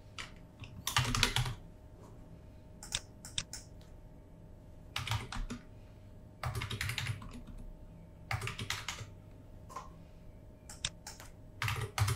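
Typing on a computer keyboard: about six short bursts of keystrokes with pauses of a second or two between them.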